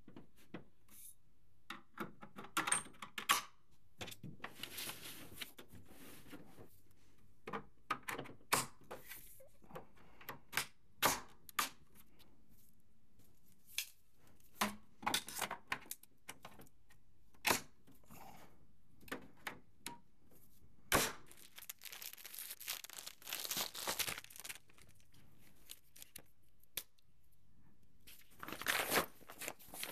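Plastic and metal parts of a 4moms Mamaroo baby rocker being handled and fitted together: scattered sharp clicks and knocks, with several stretches of rustling and tearing noise, the longest a little past the middle and another near the end.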